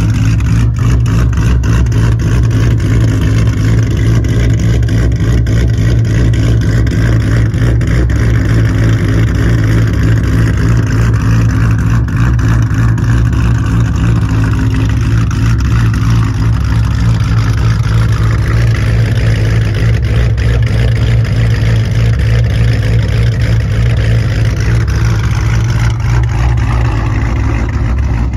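2003 Mustang SVT Cobra's built DOHC modular V8, with a 2.9 L Whipple supercharger, Kurgan custom-grind cams and Kooks long-tube headers, idling steadily with a choppy, lumpy cam idle through the exhaust.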